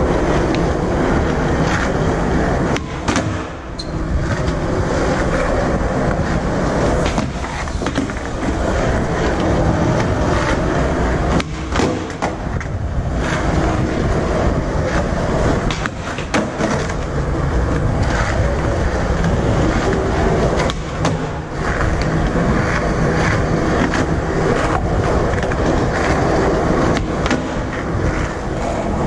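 Skateboard wheels rolling over concrete, a steady close rolling noise, with a few sharp knocks scattered through it.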